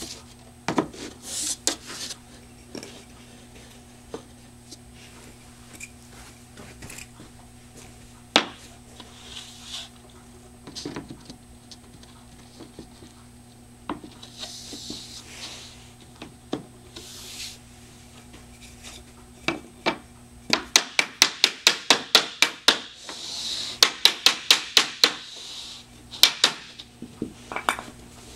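Interlocking 8 mm laminate floor planks being laid: scattered knocks, clicks and scrapes as planks are set down and slid into the joint, then, about two thirds of the way in, two quick runs of sharp taps, about five a second, as a plank is tapped home, with a few single taps after.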